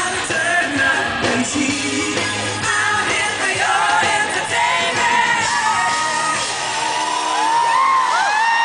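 Live pop-rock band and lead singer playing the close of a song, heard from the audience in a large hall, with fans screaming and whooping over it. Past the middle the band's low end thins out and high arching screams from the crowd rise to the top.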